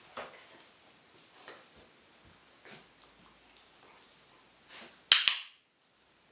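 A single sharp, loud click about five seconds in. Under it are faint scattered taps and a faint high tick repeating about twice a second.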